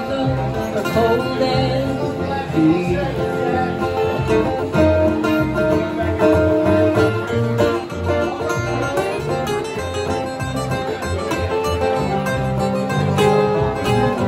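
Live acoustic country song: two acoustic guitars strumming and picking over a plucked upright bass.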